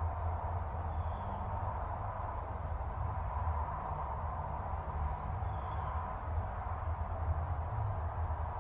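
Outdoor ambience: a steady low hum, with short high-pitched chirps repeating about once or twice a second, a little irregularly.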